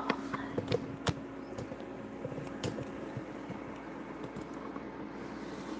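A battered Oreo frying in a small pot of hot shortening: the oil sizzles and crackles with irregular small pops, over a steady low hum.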